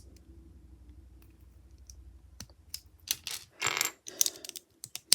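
Small plastic Lego bricks clicking and clattering as they are handled and sorted: a few light clicks at first, then a louder run of rattling from about three seconds in.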